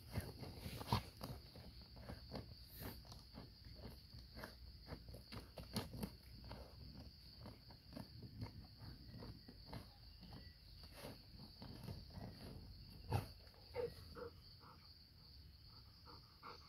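Labrador's paws scratching and scraping at dry, stony soil in quick, irregular strokes, faint, over a steady high drone of insects. A couple of louder knocks come about three-quarters of the way through.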